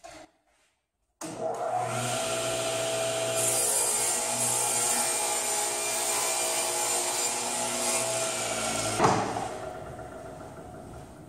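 Table saw running and ripping a board of plywood, the blade's steady whine and hiss loudest while the wood is fed through. Near the end the saw is switched off and the blade spins down, fading over a couple of seconds.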